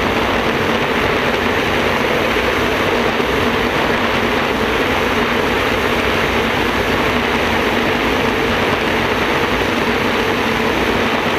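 Gas-turbine jet boat running at high speed, heard from on board: a loud, steady, unbroken roar of engine, jet and rushing air.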